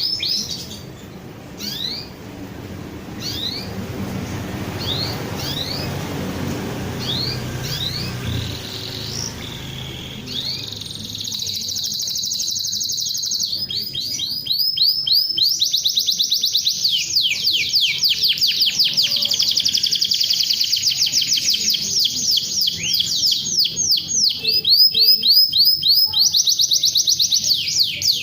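Domestic canary singing: scattered short rising chirps at first over a low background noise, then from about halfway long, fast trills and rolls of rapidly repeated high notes, loud and nearly continuous.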